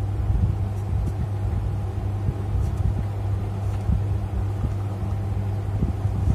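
A steady low hum, with faint scratches of a felt-tip marker drawing on paper.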